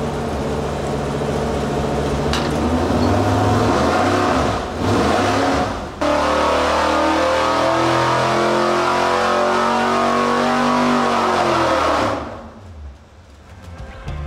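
350 cubic-inch small-block Chevy V8 with a hydraulic flat-tappet cam, running on an engine dyno. It is pulled up through the rev range under load, then the throttle is closed about 12 seconds in and it drops back toward idle.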